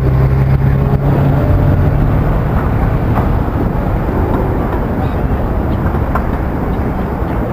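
Road traffic: a vehicle engine hums steadily for the first two seconds or so, then fades, over a constant low outdoor rumble.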